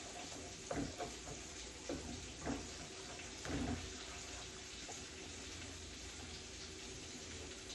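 Eggs sizzling in a hot frying pan while a slotted spatula scrapes and knocks against the pan, stirring them into scrambled eggs. There are several scrapes in the first four seconds, then only the steady sizzle.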